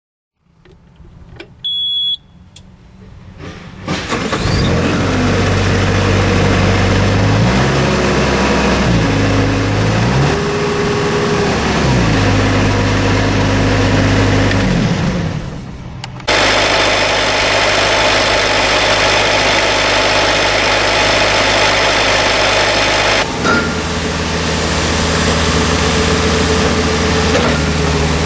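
Diesel engine of a Bobcat T190 compact track loader (a Kubota four-cylinder). A short beep is followed by the engine starting about four seconds in, then revving up and down several times. After an abrupt change it runs steadily at high speed.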